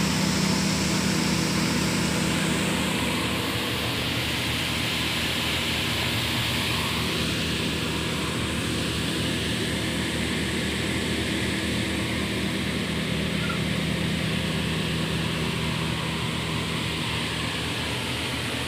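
Electric silicone-fibre grinding machine running steadily, with a constant low motor hum and a rushing hiss as it fluffs synthetic pillow filling.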